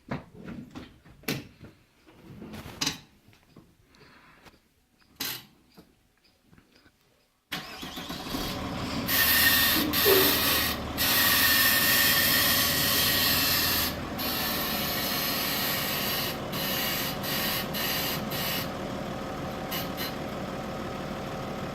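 Audi car: a few short, scattered creaks and knocks, which the owner puts down to the suspension. About seven and a half seconds in, loud, steady engine noise starts suddenly and runs on to the end.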